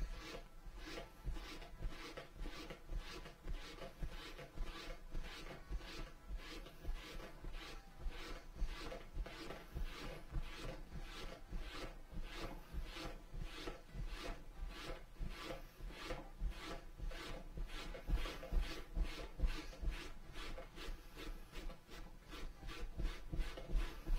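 Steady, rhythmic hand rubbing on leather, about two to three strokes a second, as a briefcase panel is worked at the bench.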